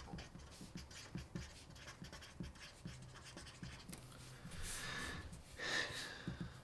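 Felt-tip marker writing on a sheet of paper: faint, short scratching strokes as block letters are written out one after another.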